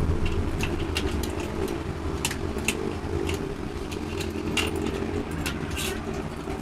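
A steady low mechanical hum with frequent light metallic clicks and clinks scattered over it, like tools and metal parts being handled in a workshop.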